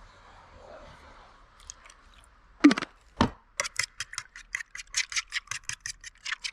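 Two sharp knocks, then a run of quick even clicks, about seven a second, of a utensil beating egg-and-milk French toast batter in a bowl.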